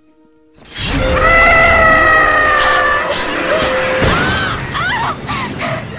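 Film sound effects: a sudden loud crash with shattering about three-quarters of a second in, then a woman's long held scream lasting about two seconds, followed by shorter cries and groans of struggle.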